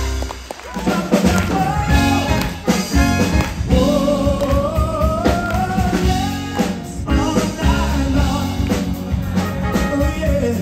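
Male vocalist singing with band accompaniment, holding one long, slowly rising note in the middle. The music dips briefly about half a second in.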